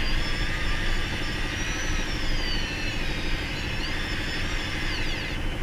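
Shimano electric fishing reel's motor winding in line under the load of a hooked fish, a thin high whine that rises and falls in pitch, over the steady low rumble of the boat's engine idling.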